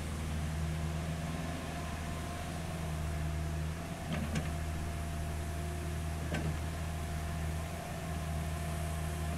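CAT 305.5E2 mini excavator's diesel engine running steadily while the machine swings and digs, with a thin steady whine above the engine hum. Three short sharp knocks come about four seconds in, just after, and again near six and a half seconds.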